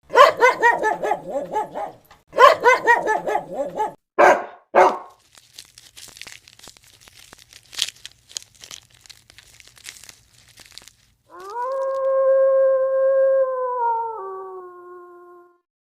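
A dog barking in two quick runs, then two single barks. After a few seconds of faint clicks and rustling, it gives one long howl that steps down in pitch near the end.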